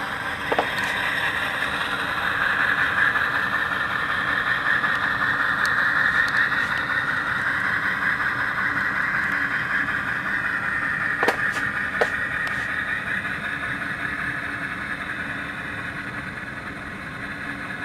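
HO-scale Bowser model of an Alco C630M diesel locomotive, its Tsunami sound decoder playing a running diesel engine sound through the model's small speaker as it moves along the track. The sound is steady, with a few faint clicks past the middle, and eases off slightly near the end.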